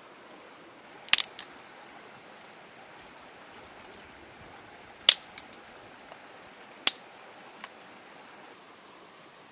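A small wood fire crackling: a quick cluster of sharp pops about a second in, the loudest single pop about five seconds in, and another near seven seconds. Under them, the steady rush of a stream.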